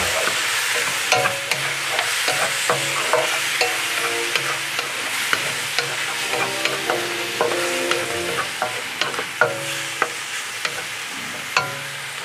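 Prawns, onion and capsicum sizzling in a hot wok as a wooden spatula stirs and tosses them, with irregular sharp clicks of the spatula against the pan over a steady hiss of frying.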